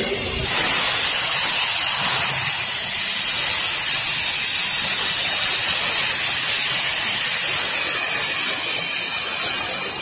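CNC plasma cutting torch hissing steadily as its arc cuts through steel plate.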